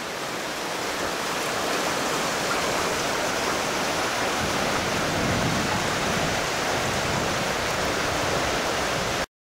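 Steady rush of water running through a reopened fish pass at a weir, building over the first couple of seconds and then holding even. It ends in a sudden cut to silence near the end.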